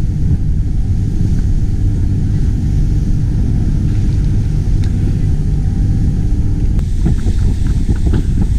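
Wind buffeting the microphone on a boat at sea over the low, steady rumble of the boat's engine. About seven seconds in the sound shifts abruptly, with more wind and light water noise after it.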